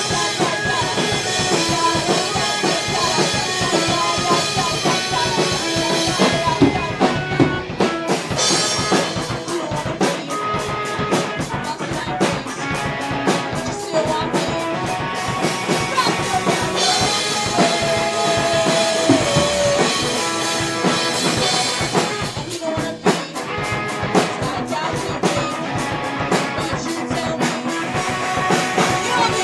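Live rock band playing a song on drum kit and guitars. The drums drop out briefly about seven seconds in, then come back with a fast, steady beat.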